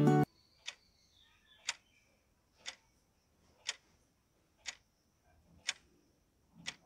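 Guitar background music cuts off just after the start. Then a clock-ticking sound effect counts down the last seconds of a puzzle timer, one tick a second.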